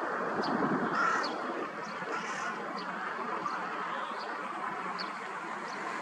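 A crow cawing against a steady rush of wind, with short high peeps repeating every second or so.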